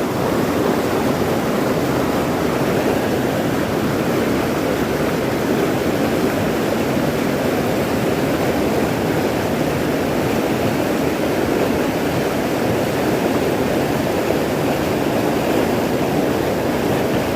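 Rushing river water: a steady, even rush of a fast-flowing mountain stream.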